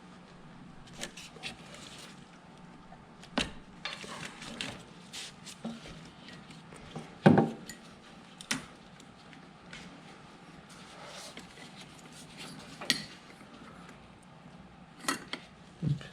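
Scattered clinks, knocks and rubbing of hand tools and metal parts being handled while fitting a heater hose and its hose clamp, with the loudest knock about seven seconds in.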